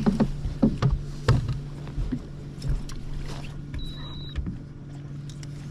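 Steady low hum of a bass boat's bow-mounted trolling motor, with a few sharp knocks on the deck in the first second and a half and a short high beep about four seconds in.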